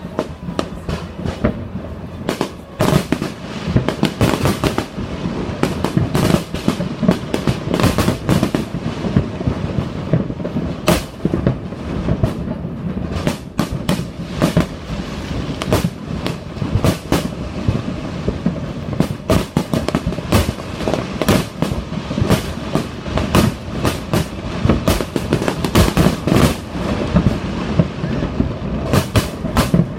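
Fireworks display: a dense, continuous barrage of bangs and crackles, several a second, over a steady rumble.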